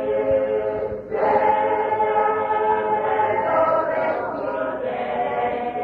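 A choir of voices singing long held notes together, with a short break about a second in. The recording is old and muffled, cut off above the upper midrange.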